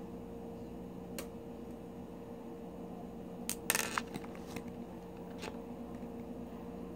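A few faint clicks and a short clattering rustle a little past halfway, from hands handling a paper plate of loose pearls, over a steady low hum.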